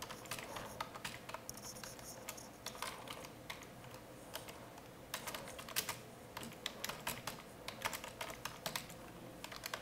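Typing on a computer keyboard: light, irregular key clicks, some in quick runs and others spaced apart, as a line of code is keyed in.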